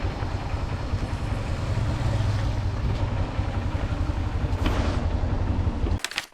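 Steady street traffic noise, with a heavy low engine rumble under a hiss like tyres on a wet road; it cuts off abruptly about six seconds in.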